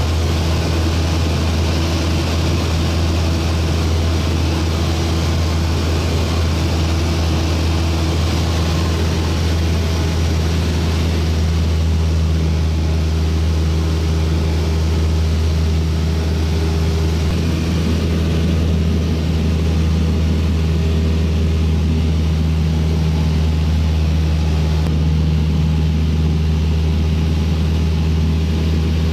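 Cessna light aircraft's piston engine and propeller in cruise, a steady low drone with a hiss of rushing air, heard inside the cabin.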